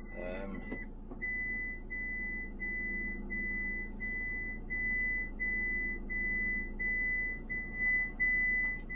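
Dashboard warning alarm of a Fiat Ducato motorhome, a high electronic beep repeating rapidly and evenly with no let-up.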